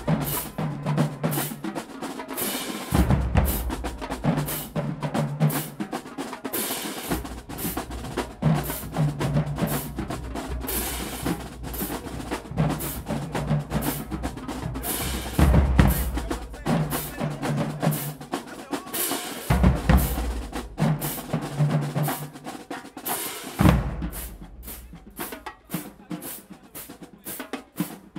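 Marching band drumline playing a cadence: snare drums with rolls, pitched bass drums and crash cymbals. Near the end the playing thins to a run of evenly spaced sharp taps, about three or four a second.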